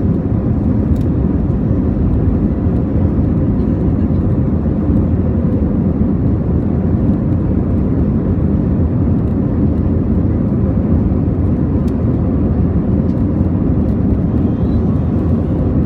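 Steady low rumble of an Airbus A321's engines and airflow, heard inside the passenger cabin, with faint steady hums over it.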